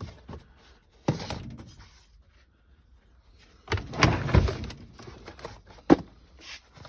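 Knocks and clatter of objects being handled in a small room: a knock about a second in, a longer rattling clatter past the middle, and a single sharp knock near the end.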